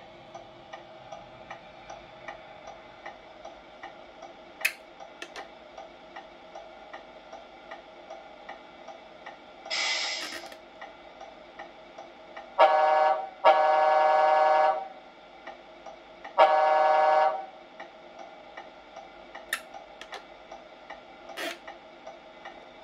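Sound unit of a Tamiya 1/14 Mercedes-Benz RC truck (MFC-03 multi-function control) playing through its small speaker: a steady ticking idle, a short hiss about ten seconds in, then three truck horn blasts, the middle one the longest.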